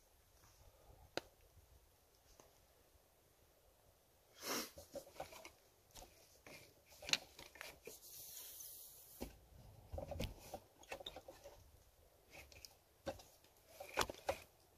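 Scattered crackles, snaps and rustles from a small twig fire and a stick being handled beside it, with a short hissy rush partway through.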